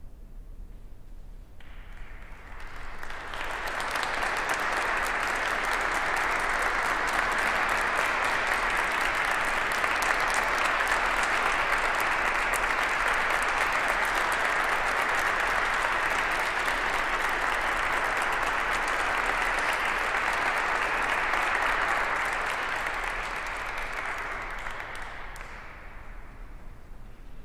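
Audience applauding: the clapping starts about two seconds in, swells quickly, holds steady, then dies away near the end.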